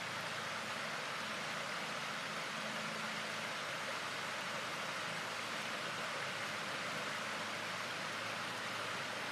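Shallow river flowing over riffles: a steady, even rushing.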